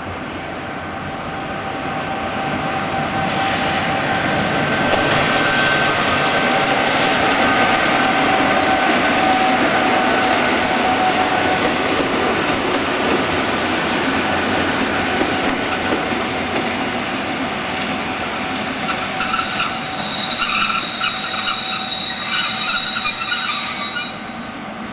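Passenger train pulling into a station: a rumble of wheels on rails swells as it approaches and passes, then high brake squeals grow over the last several seconds as it slows to a stop.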